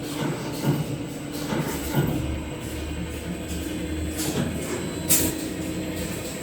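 Maxi roll paper converting line machinery running with a steady hum, with several knocks and a short sharp hiss about five seconds in.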